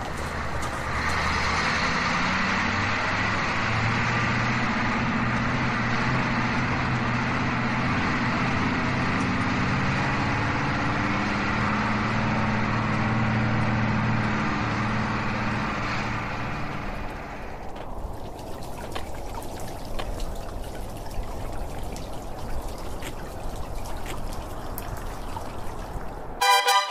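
Mercedes-Benz Paradiso 1800 DD double-decker coach driving by on a road: a steady engine drone with tyre noise that fades after about seventeen seconds. Then a stone fountain's water trickling and splashing, quieter, until music begins right at the end.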